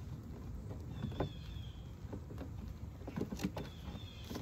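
Light knocks and clicks from beehive frames and wooden hive boxes being handled, over a steady low rumble, with a short high falling chirp heard twice.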